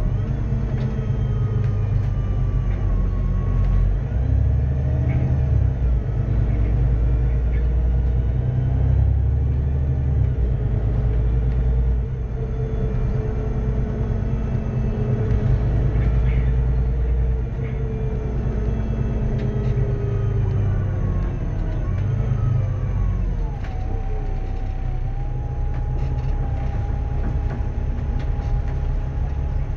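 VDL DB300 double-decker bus with a Cummins ISBe 6.7-litre six-cylinder diesel and Voith DIWA automatic gearbox, running on the road: a steady low engine rumble with thin whines that slowly rise and fall in pitch. Near the end one whine drops in pitch and then holds steady.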